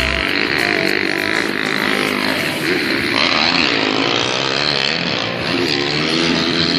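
Racing vehicle engine revving, its pitch rising and falling several times over a steady wash of noise.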